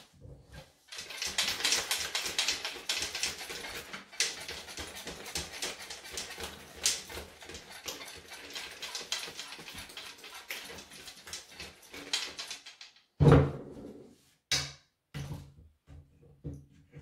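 Husqvarna chainsaw shaken by hand to flush its fuel tank: a dense, fast rattle of the saw body with liquid sloshing inside it for about twelve seconds. A heavy thump follows about thirteen seconds in as the saw is set down on the bench, then a few lighter knocks.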